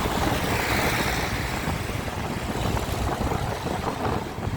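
Steady wind rush on the microphone over the low rumble of road and engine noise from a motorcycle being ridden.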